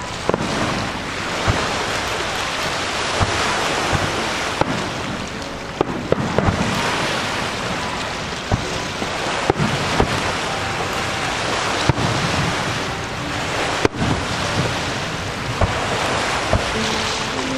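Aerial fireworks bursting at a distance: a dozen or so sharp bangs at irregular intervals, over a steady rushing noise.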